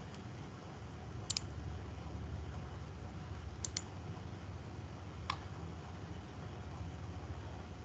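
Computer mouse clicks: a quick double click about a second in, another pair around three and a half seconds, and a single click a little after five seconds, over a faint steady low hum of background noise.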